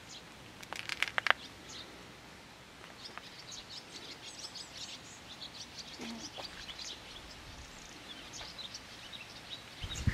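Small birds chirping and singing in the trees around a pond, many short high notes scattered through. About a second in comes a brief run of sharp, loud clicks, the loudest thing heard.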